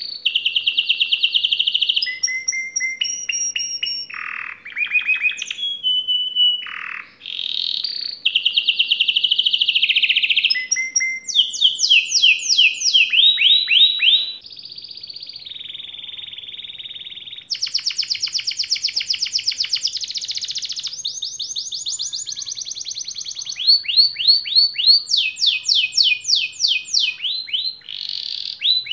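Domestic canaries singing in turn: long rolled trills and runs of rapid, sharply falling notes, with the song changing abruptly partway through as a second canary takes over. A faint steady hum lies under the first half.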